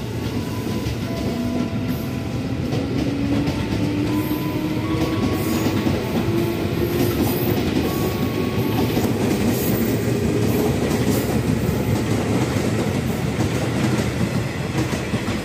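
Ex-JR 205 series electric commuter train running along the tracks, its motor hum rising slowly in pitch as it gathers speed, with the wheels clattering over rail joints and points.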